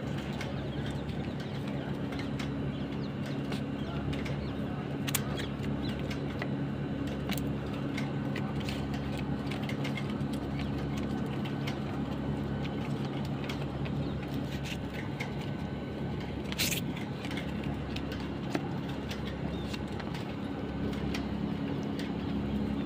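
A steady low mechanical hum running throughout, with a few sharp clicks, one about five seconds in and a louder one near the seventeenth second.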